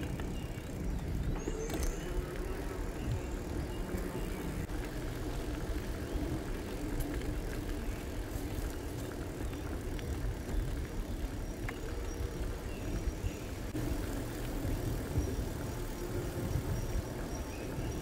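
E-bike ride: steady tyre rumble and wind buffeting the microphone as the bike rolls along.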